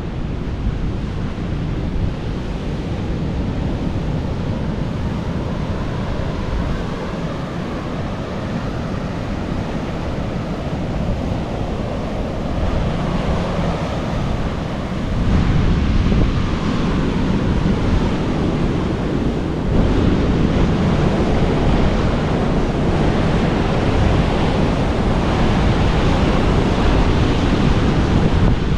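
Ocean surf washing onto the shore, with wind buffeting the microphone; the surf grows louder about halfway through.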